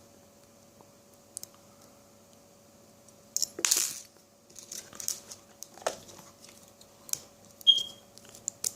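Lock picks and a tension tool working in a padlock. After a quiet start, sharp metallic clicks and rattles begin about three seconds in, with a louder clatter at first and then scattered clicks and a short high ping near the end.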